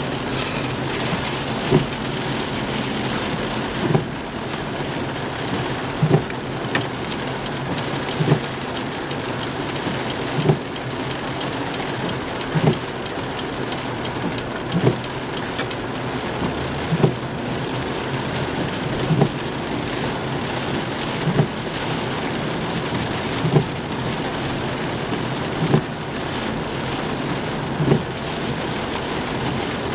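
Heavy rain drumming on a car's windshield and roof, heard from inside the cabin, with the windshield wipers sweeping: a short thump about every two seconds, evenly spaced.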